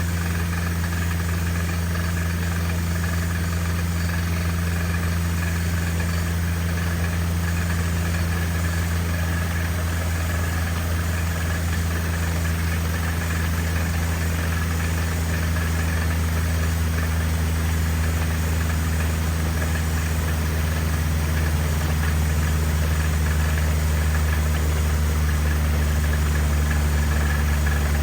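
Engine of a water-well drilling rig running steadily with a low, even hum; its note drops slightly and gets a little louder about three-quarters of the way through.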